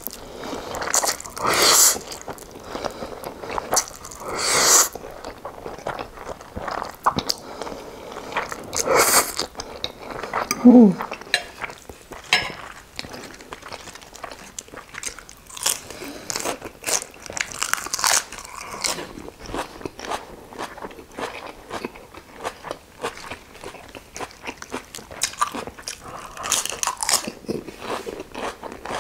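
Close-miked eating sounds. Spicy instant noodles are slurped in several long noisy pulls in the first few seconds and again near the ninth second. Then come steady crunching and chewing with many small clicks as a lettuce-leaf wrap is eaten.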